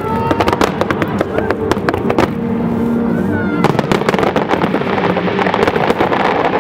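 Fireworks going off in quick succession: a dense run of sharp bangs and crackling pops, thinning out briefly mid-way and then picking up again.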